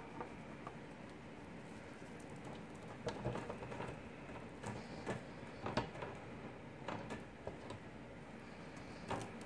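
Faint rustling of cables and small plastic clicks and knocks as PCIe power connectors are handled and pushed into an Antminer S9 hashboard's power sockets, scattered from about three seconds in.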